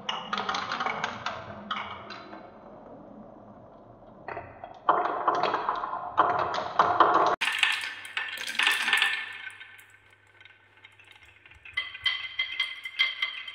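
Glass marbles rolling around a wooden spiral marble-run track, a dense clatter of clicks as they knock against the wood and one another. About halfway the sound changes abruptly. Near the end marbles roll along a wavy-grooved wooden track with a bright, ringing clatter.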